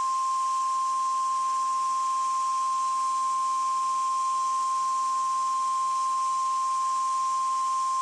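NOAA Weather Radio warning alarm tone: a single steady 1050 Hz tone held unbroken, the alert signal that comes before a National Weather Service required weekly test message.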